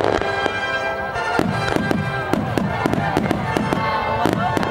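Aerial fireworks display: a dense, continuous barrage of overlapping bangs and crackling bursts, several each second.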